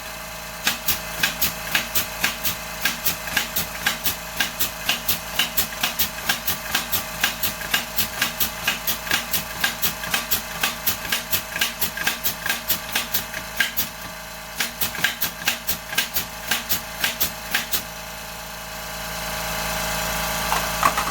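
Pneumatic brad nailer fired over and over, about three to four sharp shots a second, with a brief pause partway and stopping a few seconds before the end. Under it the Excell 2-gallon oil-free air compressor runs steadily and grows louder near the end; it keeps up with the nailing but doesn't build pressure past that.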